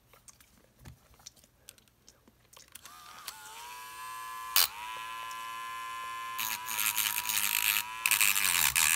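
A Drill Master rotary tool, a cheap Dremel-style tool, starts up about three seconds in with a rising whine and runs at a steady high pitch. In the last couple of seconds it grinds noisily against the work, then winds down near the end.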